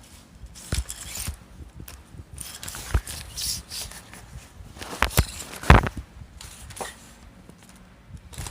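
A tripod being handled and folded: its leg sections sliding and scraping, with several sharp snaps of the leg clip locks. The loudest snap comes about two-thirds of the way through.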